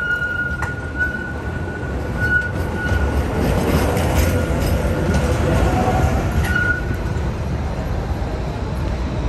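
City trams passing close by: steel wheels squeal on the rails in thin, high, steady tones at the start and again briefly around two and six and a half seconds in, while the rumble of a passing tram swells from about three seconds in and eases off by seven.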